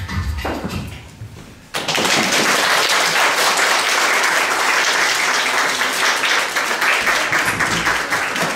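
Dance music fading out, then an audience applauding, children among them, starting abruptly about two seconds in and going on steadily.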